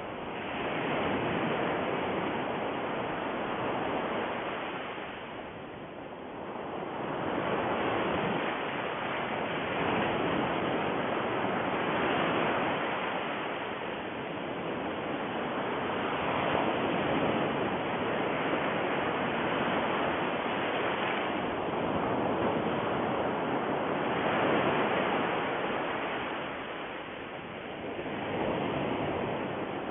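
Rushing noise like ocean surf, swelling and falling back every few seconds.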